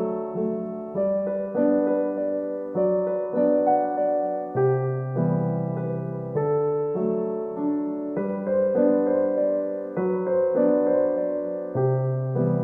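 Gentle background piano music, slow notes and chords that each fade after they are struck.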